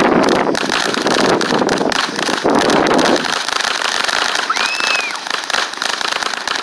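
Several sparkly consumer fireworks burning at once, giving a dense crackle and hiss. It is loudest for the first three seconds, then thins out.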